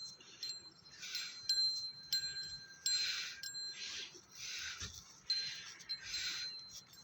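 Small metal bells jingling in short bursts about once a second, with a thin ringing tone carrying on between bursts, as from bells on a decorated bull shifting and stepping.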